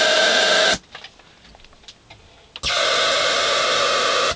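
Homebrew transistor audio amplifier oscillating, heard through its loudspeaker as a loud, harsh buzzing noise in two bursts that cut off suddenly, one ending under a second in and the other starting about two and a half seconds in. The oscillation comes from the power stage's input not being separated from the preamplifier by a resistor.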